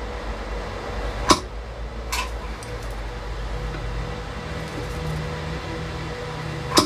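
Spot welder firing three sharp snaps as its probe tack-welds a tab onto a Samsung lithium-ion cell: one about a second in, a weaker one a second later, and one near the end, over a steady hum.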